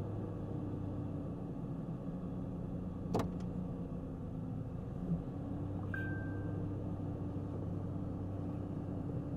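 2001 Ford Ranger's engine idling steadily in neutral, its idle still raised after the missing PCV valve was replaced. A sharp click about three seconds in and a brief high chirp around six seconds.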